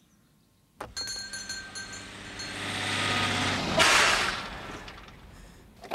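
Fire engine sound effect: a click about a second in, then the engine running and drawing closer, loudest about four seconds in, then fading away.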